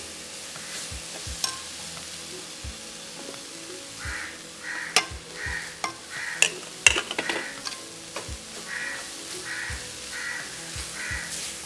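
A metal spoon stirs and scrapes a dry, well-roasted banana flower fry around a metal kadai over a light sizzle, with sharp clicks of the spoon against the pan, loudest in the middle. Grated coconut is being mixed in, the last stage once the fry has dried enough to catch on the bottom. In the background a bird calls in two runs of short repeated calls.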